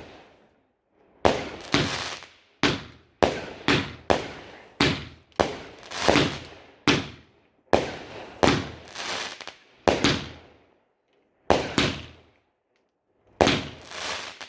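Fireworks going off in a quick, irregular run of sharp bangs, each ringing away briefly. There are two short pauses, after about ten and twelve seconds.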